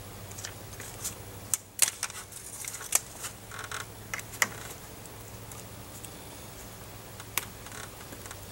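Handling noise as hands work at a mini-split line set: a run of sharp clicks, taps and short rustles in the first half, and one more click near the end, over a steady low hum.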